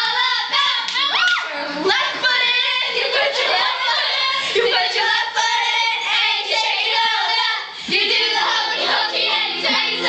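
A group of girls singing together in overlapping voices, with shouts and some hand claps.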